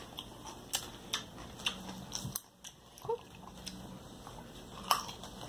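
Scattered light clicks and small knocks at an uneven pace, with one a bit louder near the end and a brief dip to near quiet a little over two seconds in.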